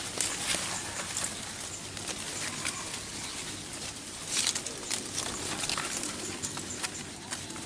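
Mango-tree leaves and twigs rustling and crackling in a dense, irregular patter as branches around a bulbul nest are handled close to the microphone, with a louder burst of rustling about four and a half seconds in.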